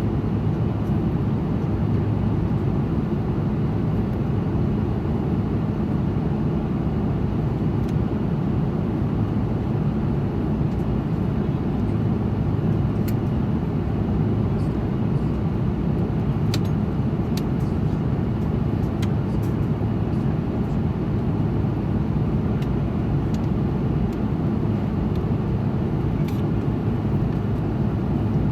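Steady low drone inside the cabin of an Airbus A330-200 airliner: engine and airflow noise, even throughout.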